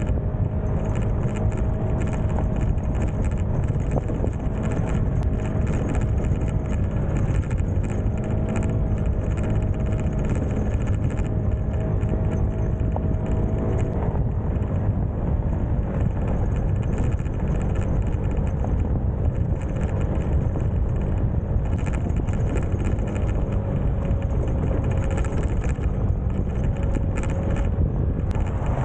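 Small Honda single-cylinder four-stroke motorbike engine running steadily while riding a dirt road, mixed with heavy wind and road rumble.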